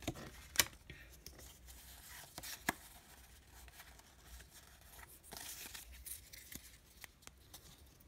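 Pokémon trading cards being handled and slid against one another: a few sharp clicks as the card stack is tapped and shifted, the loudest about half a second in, and a soft sliding hiss around five seconds in.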